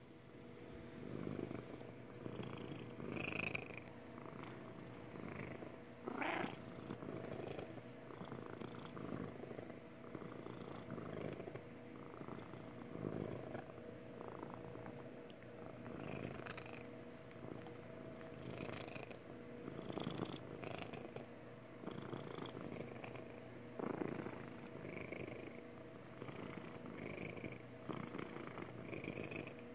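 Domestic cat purring close up while being stroked, a contented "happy purr" that swells and eases every two to three seconds with her breathing.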